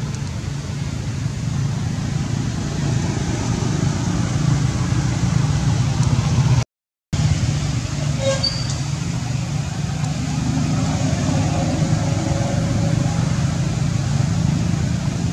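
A steady low rumble of background noise, cut by a brief total dropout about seven seconds in, with a faint short high sound about a second later.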